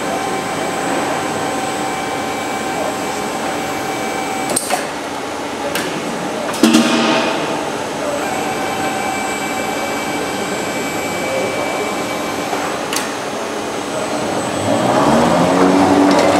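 An automated pipe-storage system in a factory hall runs with a steady machine hum. Sharp clicks come now and then, and a short hiss sounds about seven seconds in. Near the end an electric drive winds up with a rising whine as the overhead gantry carrying a steel pipe starts to move.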